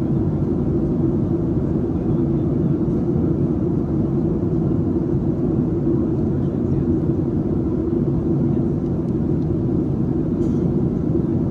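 Steady cabin noise inside a Boeing 737-700 on approach: the CFM56-7B engines and the airflow over the fuselage make a constant low drone that does not change.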